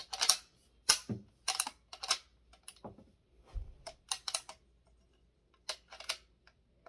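Henry Golden Boy Silver .22 lever-action rifle being cycled by hand: a series of sharp metallic clicks and clacks in irregular clusters as the lever is worked open and shut, with a short pause about five seconds in. The action runs smooth.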